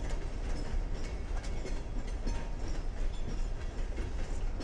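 Freight train rolling past close by: two Heart of Georgia Railroad diesel locomotives pulling covered hopper cars. It makes a steady low rumble, with wheels clicking over the rail joints.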